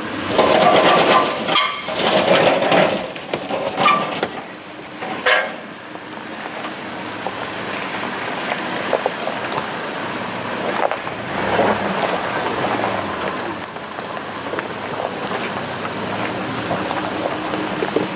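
Off-road 4x4 engine running and revving as the vehicle works over a trail obstacle, with loud, rough stretches in the first few seconds that settle into a steadier running sound.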